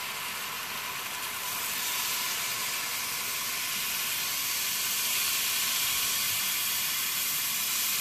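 Vegetables and tofu frying in oil in a pot on a gas stove: a steady sizzle that grows slightly louder partway through.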